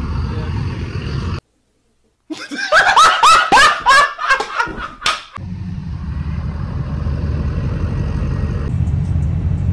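Steady low rumble of vehicle engines, broken by a second of dead silence, then about three seconds of loud, high-pitched laughing in quick bursts that fall in pitch; the low engine rumble returns after the laughing and runs on.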